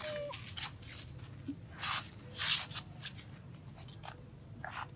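About six short, dry rustling crunches at irregular intervals, the loudest about halfway through, from a baby monkey chewing lotus and moving about on dry leaf litter.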